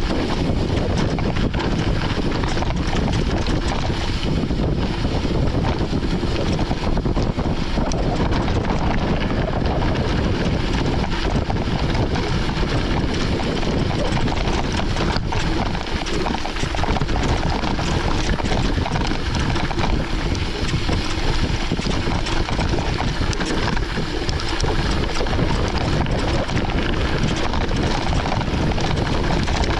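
Steady wind rushing over the microphone of a camera carried on a moving mountain bike, over a continuous low rumble of the ride on a gravel forest road.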